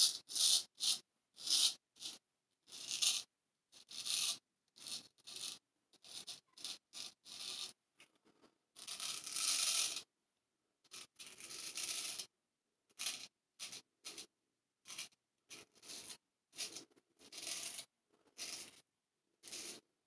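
Person Special Solingen straight razor scraping stubble through shaving lather in a quick series of short strokes, with a few longer ones around the middle. This is the first pass, with the grain.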